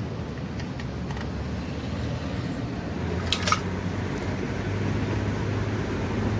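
Motorcycle engine idling steadily after being kick-started, the idle slowly getting louder. It runs on a temporary fix, engine oil poured into the cylinder through the spark plug hole to make up for compression lost through leaking valves. Two short metallic clicks come about halfway through.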